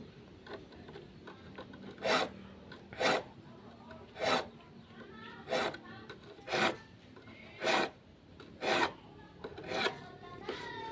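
A hand file rasping across the teeth of a hand saw to sharpen them: short strokes about once a second, eight in all.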